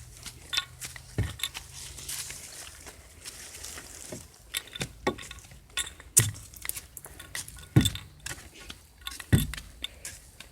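Footsteps climbing outdoor trail stairs: several heavy footfall thuds, the last three about one and a half seconds apart, with crunching and scuffing steps in between.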